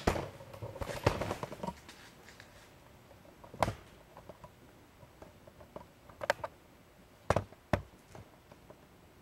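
Scattered sharp knocks and taps: a short cluster at the start, then single ones a few seconds apart, including two close together near the end.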